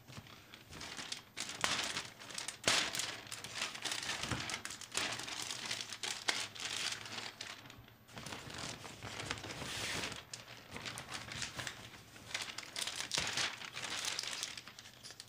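Crinkly softbox diffusion fabric rustling and crinkling as it is handled and pulled about inside a NiceFoto parabolic softbox, with a few sharp clicks.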